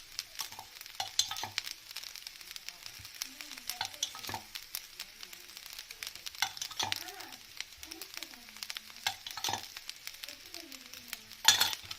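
Food sizzling in a kadai while a spatula stirs it, with irregular scrapes and knocks against the pan and one louder clatter near the end.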